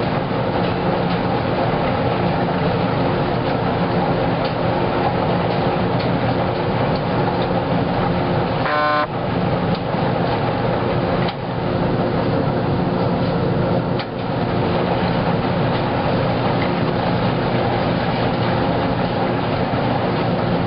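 Wascomat Junior W73 commercial front-load washer tumbling a load of laundry, its drum and motor running with a steady hum. A short buzzing tone sounds about nine seconds in.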